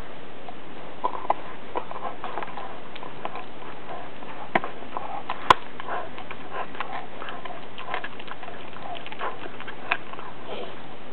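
A husky gnawing and crunching on a T-bone steak bone: irregular clicks and crackles of teeth on bone, the sharpest about five and a half seconds in.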